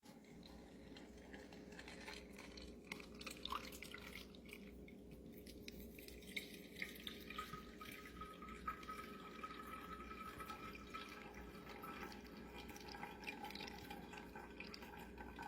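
Liquid dripping faintly and irregularly through a filter into a container as the rinse water is filtered to catch the gold flakes.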